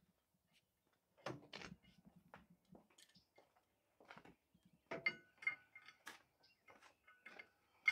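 Venturo CE6K truck crane being swung on its mast, giving faint, scattered metallic clicks and clunks, with a few short high squeaks after about five seconds.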